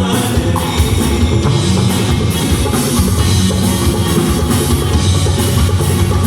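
Live band music: an instrumental passage driven by a drum kit with a heavy bass drum and sustained low notes.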